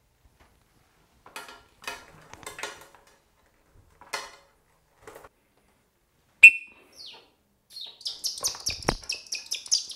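Harris's hawk flapping its wings with a feathery rustle as it hops between stool and glove, then giving a rapid run of high-pitched squealing calls near the end, with a dull thump in among them.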